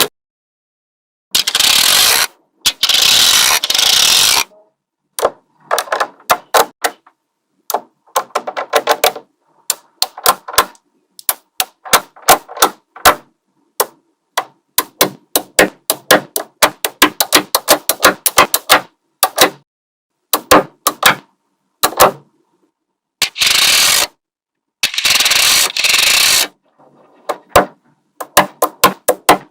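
Small magnetic balls clicking sharply as they snap onto one another, sometimes singly and sometimes in quick runs of clicks. A few longer rattling bursts of about a second come near the start and again after about 23 seconds.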